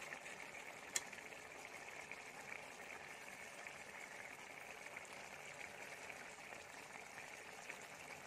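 Small brinjals in a thick peanut-powder gravy simmering in a kadhai: a faint, steady bubbling hiss. One light click about a second in.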